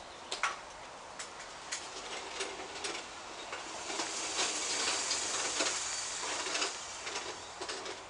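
Wild birds calling, including low cooing notes, over scattered short sharp clicks. A rustling hiss swells about four seconds in and dies down about three seconds later.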